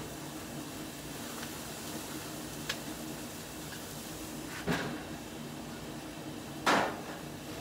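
A gas grill's metal lid is shut with a clunk just past halfway, and a second, louder clunk follows about two seconds later, over a steady low hum.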